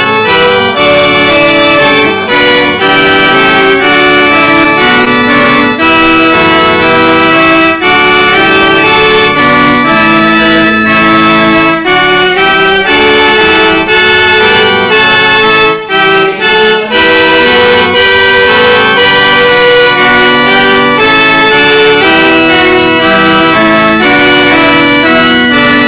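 Recorded instrumental hymn accompaniment: held chords that move from note to note at a steady pace.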